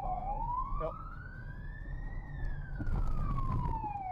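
Police car siren wailing, sweeping slowly up in pitch and back down over about four seconds, heard from inside the pursuing police car over engine and road noise. A louder rush of noise comes about three seconds in.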